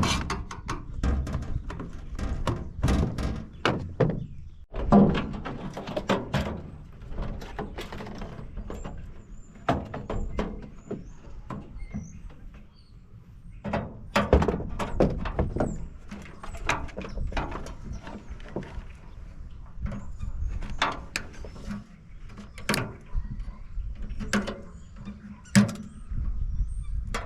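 Irregular knocks, clanks and rattles of a microwave's metal casing and parts being handled and pulled apart by hand.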